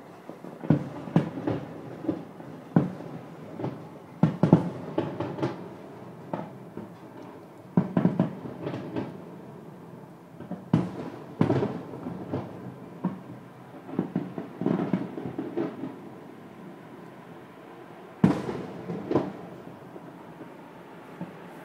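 Aerial fireworks shells bursting: many sharp bangs and booms in irregular clusters, separated by short pauses, over a low continuous rumble.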